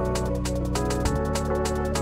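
Electronic background music with a steady, quick beat; the bass line shifts to a new note about a second in.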